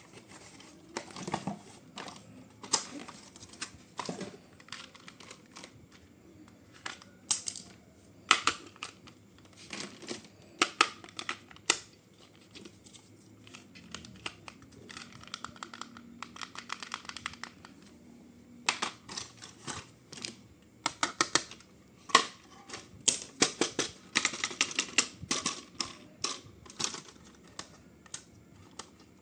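Irregular sharp clicks and taps, some single and some in quick runs, from hard plastic toy parts and packaging being handled during unboxing.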